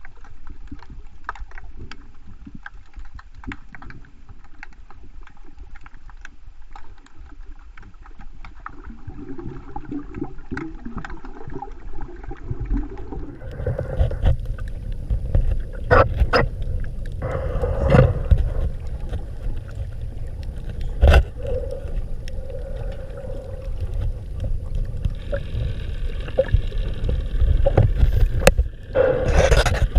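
Muffled underwater sound picked up by a camera below the surface: a low rumble of moving water with scattered clicks, louder from about halfway through with a few sharp knocks.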